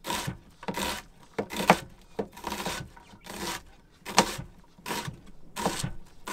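Chef's knife dicing a scored onion on a cutting board: a steady series of crisp crunching cuts, about one and a half a second, each stroke chopping through the onion's layers and tapping the board.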